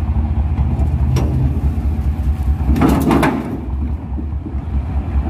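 Hitachi EX200 excavator's diesel engine running steadily under load as the machine tracks up onto a lowbed trailer, with a short burst of metal clanking about three seconds in.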